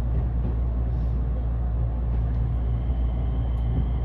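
Steady low rumble of a moving vehicle, heard from inside the cabin.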